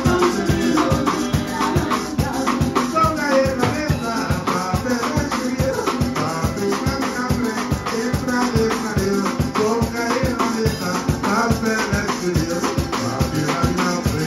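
Live Trinidadian parang band playing: strummed acoustic guitars over a steady rattling shaker beat, with a man singing.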